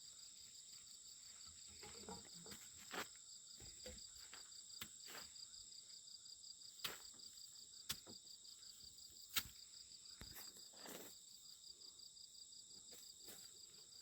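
Night-time chorus of crickets: a faint, steady, high trill with a rapid even pulse, broken by a few faint clicks.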